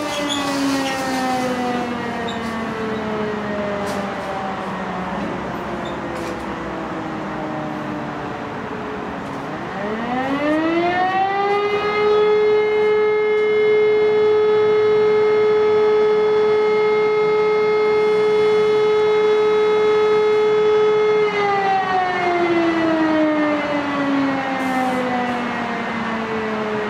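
E57 electric motor siren sounding the German fire-brigade alarm signal (Feueralarm) that calls out the volunteer firefighters. One tone winds slowly down, then about ten seconds in the next tone spins up to a steady pitch, holds loudest for about nine seconds, and starts winding down again near the end.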